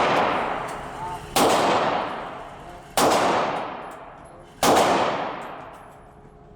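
Three 9mm pistol shots about a second and a half apart, each followed by a long echoing decay, with another shot at the very end.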